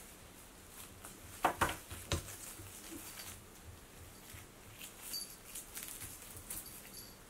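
Plastic gift ribbon rustling and crackling as a cat chews and tugs at it, with a burst of louder crackles about a second and a half in and smaller rustles after.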